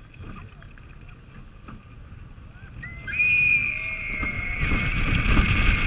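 Roller coaster train cresting the top of the lift hill and starting down the first drop: a low rumble at first, then from about three seconds in riders' high, held screams, with wheel rumble and wind on the microphone building as the train gathers speed.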